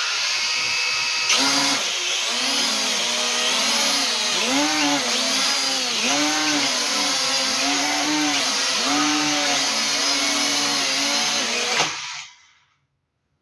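Drone's electric motors and propellers buzzing loudly and steadily, the pitch repeatedly rising and falling as the motor speeds change. It trails off and stops about twelve seconds in.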